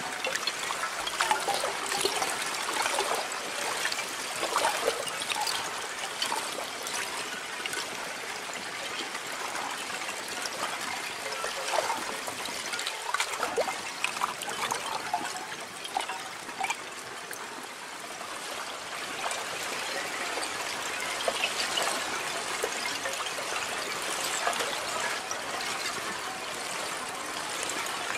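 Candle ice, lake ice broken into loose columnar crystals during the spring melt, washed against the shore by gentle waves. The pieces chime and tinkle as they strike each other, a constant scatter of small clinks over a steady wash of water.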